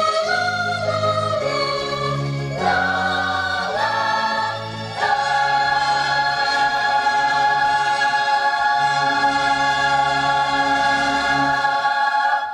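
Closing music of a children's musical cartoon: a choir singing over an orchestra, moving through a few chords and then ending on one long held final chord from about five seconds in, which dies away at the very end.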